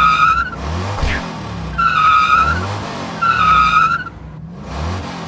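Monster truck engine and tyre-squeal sound effects: three high squeals, each under a second long, over a low engine rumble.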